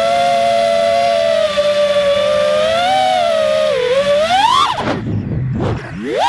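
Emax 2205 2600kv brushless motors of an FPV quadcopter whining in flight, a steady pitched whine with several overtones. About four seconds in the pitch climbs, then falls away steeply and swoops back up near the end as the throttle changes.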